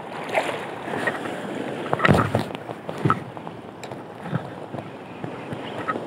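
Wind and choppy surf, with wind buffeting the microphone, and scattered short knocks and splashes, the loudest about two seconds in.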